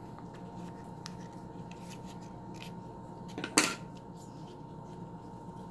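Small scissors snipping the soft, leathery shell of a ball python egg in a few faint clicks, with one much louder sharp clack about three and a half seconds in.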